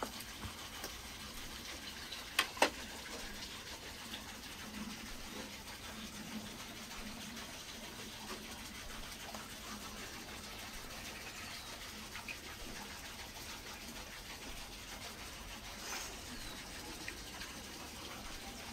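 Cleaver chopping into a whole roast lamb stuffed with pilaf: two sharp knocks in quick succession a couple of seconds in, over a steady faint background hiss with a few small ticks.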